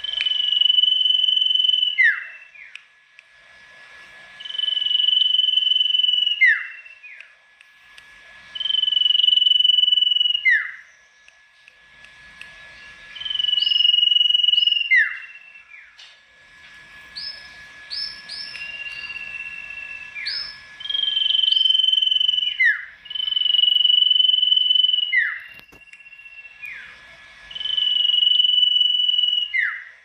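Sirtu songbird singing loud repeated phrases, one about every four seconds: each a long held high whistle ending in a quick downward slur. Midway, one phrase is replaced by a rapid run of short, higher notes.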